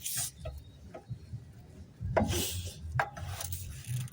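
Metal car suspension parts and hand tools scraping and clinking as a part is worked loose, with short rasping scrapes at the start and about two seconds in and a few light knocks.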